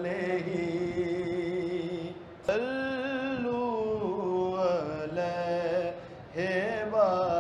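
A solo voice chanting devotionally in long, held notes, with a new phrase starting about two and a half seconds in and again near the end.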